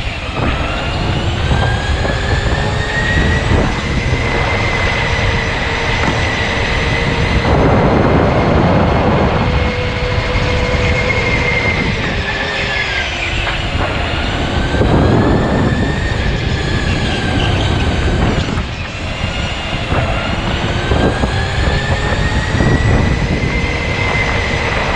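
Electric go-kart motor whining. The whine climbs as the kart speeds up, holds steady, and falls away twice as it slows before climbing again, with two rushes of broad noise along the way.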